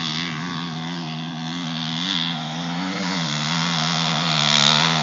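Dirt bike engine revving under load on a hill climb, its pitch rising and falling with the throttle and getting louder near the end.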